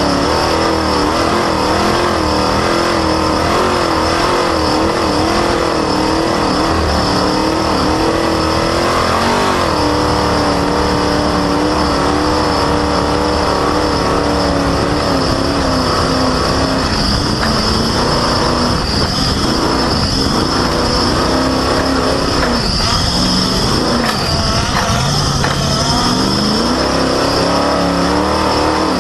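Off-road race vehicle running hard over rough ground, its engine pitch rising and falling with the throttle and dropping a couple of times before climbing again near the end. A steady high-pitched squeal from a loud, squeaky drive belt runs over the engine the whole time.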